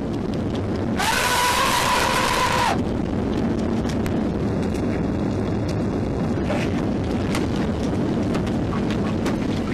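A steady low rumble of airliner cabin noise with scattered knocks and scuffling from a struggle at the emergency exit. About a second in comes a loud, held cry lasting nearly two seconds.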